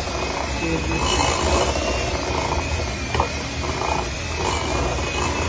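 Electric hand mixer running steadily, its beaters churning a thick creamed butter, sugar and egg cookie dough in a glass bowl, with a single sharp click about three seconds in.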